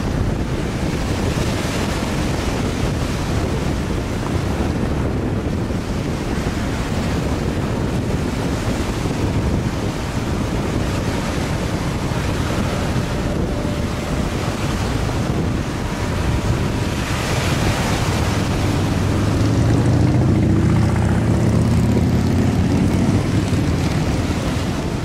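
Wind buffeting the microphone over choppy open water, with the wash of waves. A low engine drone swells under it in the last several seconds.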